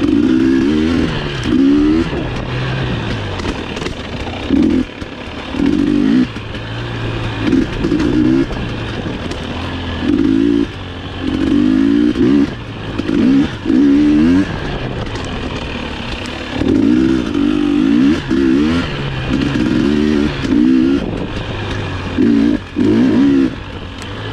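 GasGas EX250 two-stroke dirt bike engine revving in repeated bursts, its pitch climbing with each throttle opening and falling back between them every second or two.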